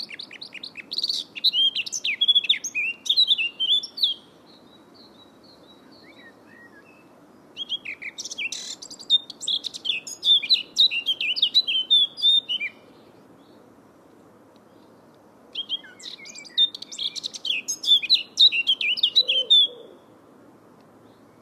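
A songbird singing three long phrases of rapid, high, quick-changing notes, each about four to five seconds long with pauses between, over a faint steady low background noise.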